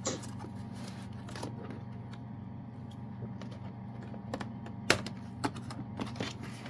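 Plastic smoke alarm being handled, with scattered light clicks and taps, the sharpest a little before five seconds in, over a steady low hum.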